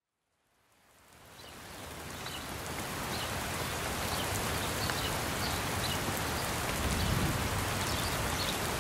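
Steady rain falling, fading in from silence over the first couple of seconds, with separate drops ticking above the hiss.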